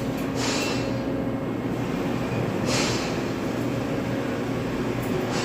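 Coffee vending machine running as it prepares a cappuccino: a steady motor hum, with short surges of hiss about every two seconds.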